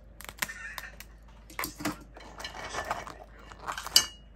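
Cooked crabs' hard shells and legs clattering and scraping against one another and the pot as they are pulled out of the pile, in irregular clicks and rustles, with a sharp clack and a short ring near the end.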